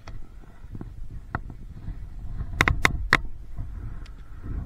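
Handling noise as a small catfish is taken in hand: a few sharp clicks and knocks, the loudest three close together about two and a half to three seconds in, over a low rumble.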